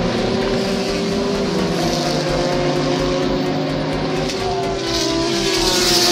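Several endurance race cars running at high revs through a corner, their engines overlapping in a continuous drone. Near the end the sound grows louder and a hiss rises as a car passes close.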